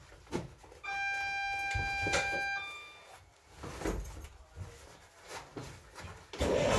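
Inside a BR Class 142 Pacer railcar, a steady buzzer-like tone sounds for under two seconds, then briefly switches to a higher pitch, amid scattered light clicks and knocks. Near the end, the underfloor diesel engine starts suddenly, loud and low-pitched, and is the loudest sound.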